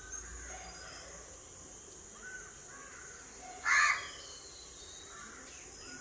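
A crow caws once, loudly and briefly, a little past halfway, over a steady high hiss and a few faint bird chirps.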